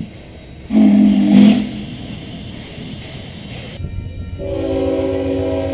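Union Pacific 844's steam whistle gives one short blast of about a second, a low chord with steam hiss. A little past halfway, after a cut, a diesel locomotive's multi-note air horn, CSX 7317 leading a freight, sounds a steady chord.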